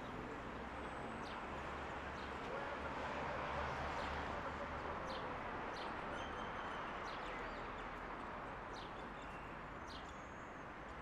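Birds chirping in short, scattered calls over a steady outdoor background hum.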